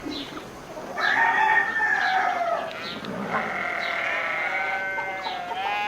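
Barnyard ambience: farm animals calling, with long drawn-out calls overlapping from about a second in.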